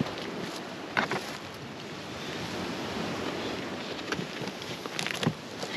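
Steady rushing wind, with sharp knocks about a second in and a quick cluster of knocks near the end as a dog kennel is handled into place.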